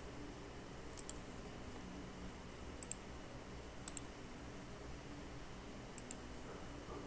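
Four pairs of short, sharp clicks, like a computer mouse or key being pressed and released, about 1, 3, 4 and 6 seconds in. A low steady room hum runs underneath.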